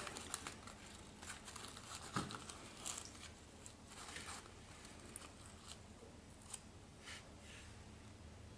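Faint rustling and crinkling of a paper coffee filter being pinched and moved about in a plastic funnel, with small scattered clicks, busiest in the first few seconds.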